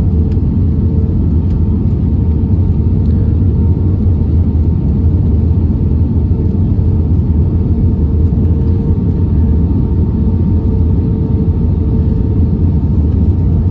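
Cabin noise of an Airbus A320-232 on approach, heard from a seat over the wing: a steady low rumble of its IAE V2500 engines and of air rushing past the extended flaps, with a faint steady hum above it.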